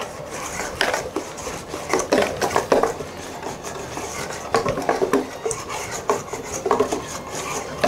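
Wire balloon whisk clinking and scraping against a stainless steel mixing bowl in quick, irregular strokes, stirring sifted flour into an egg-yolk and milk batter.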